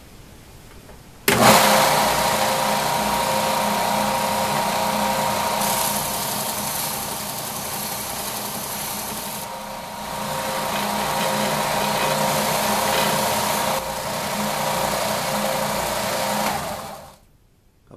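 Benchtop belt sander switched on about a second in, its motor and belt running with a steady hum and whine. The end of a polished steel rod is ground against the belt, and the grinding noise rises and falls in stretches as the rod is pressed on and eased off. The sander is switched off near the end and dies away quickly.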